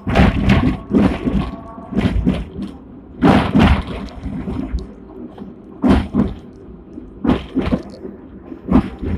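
Hong Kong sixth-generation double-decker tram running, heard from inside the car: irregular loud knocks and clatters, bunched closest around a third of the way in, over a steady low rumble.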